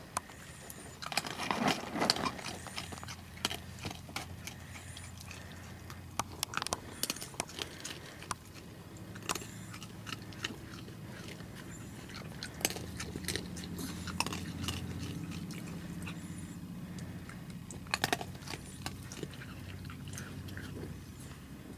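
Young raccoons chewing and crunching food taken from a hand: a scatter of sharp crunches and clicks, busiest near the start, with a low steady hum underneath in the second half.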